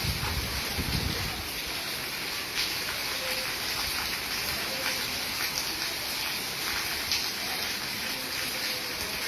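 Heavy rain falling steadily, a continuous hiss with scattered drops ticking. A low rumble is heard in the first second or so.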